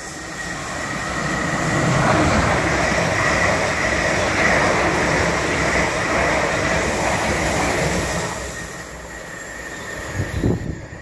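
Two coupled Class 444 Desiro electric multiple units running past a platform: the rush of wheels on rail builds over the first couple of seconds, stays loud for about six seconds with a steady high whine, then fades. A few low thumps come near the end.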